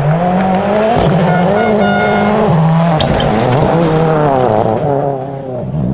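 Rally car engine under hard throttle, revs climbing and dropping several times as it shifts gears and lifts.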